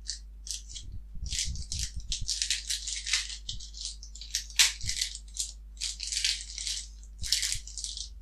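Foil Pokémon booster pack wrapper crinkling and tearing as it is opened by hand: a long run of rustling crackles.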